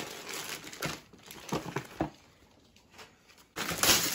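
Christmas wrapping paper crinkling and rustling in scattered bursts as presents are unwrapped, fading to a quieter stretch. About three and a half seconds in, a sudden louder rush of paper noise comes in as a wrapped present is gripped and torn into.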